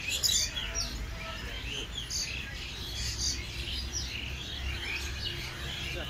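Several small birds chirping and twittering in quick, overlapping short high calls, over a steady low rumble.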